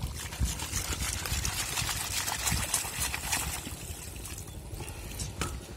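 Muddy water sloshing and trickling out through the weave of a bamboo fishing basket as it is lifted, with a dense patter of drips that fades after about four seconds.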